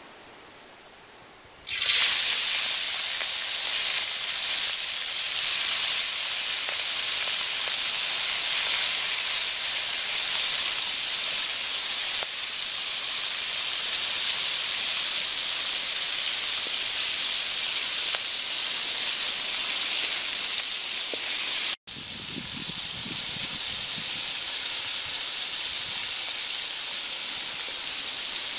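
Shrimp on bamboo skewers deep-frying in hot oil in a metal wok: a loud, steady sizzle starts suddenly about two seconds in as the shrimp go into the oil. It drops out for an instant near the end and comes back a little quieter.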